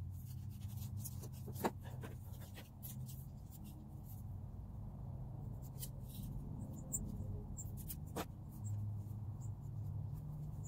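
Light rustling and scraping of dry, papery flower bulbs and small objects handled on a plastic table top, with scattered small clicks and a couple of sharper knocks, over a steady low hum.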